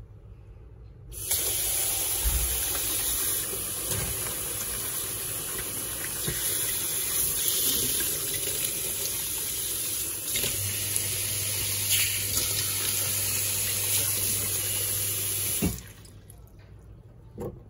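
Water running from a tap: a steady rushing hiss that starts about a second in and stops suddenly about two seconds before the end, with a low hum joining partway through.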